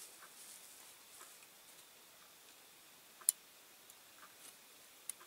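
Faint, sharp clicks and ticks of fine tweezers and a tiny rivet against a diecast model car's metal base as the rivet is worked into the rear rivet hole. The loudest click comes about three seconds in, with another near the end.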